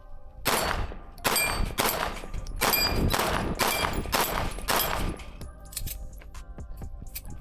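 A fast string of about ten 9mm pistol shots from a Fusion Firearms XF-Pro with a ported barrel, fired over roughly four and a half seconds, each with a metallic ring.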